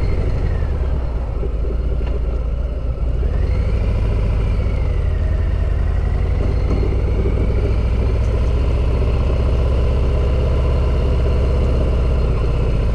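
Harley-Davidson V-twin motorcycle engine running loud and steady while being ridden slowly, with a deep rumble. A faint whine rises and then falls in pitch a few seconds in.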